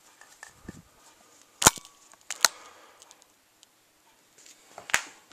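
Three sharp knocks: one about a second and a half in, another under a second later, and a third near the end.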